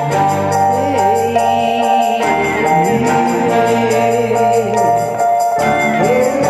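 Song introduction: sustained chords over light percussion on a steady beat, with a wordless voice gliding up and down in pitch.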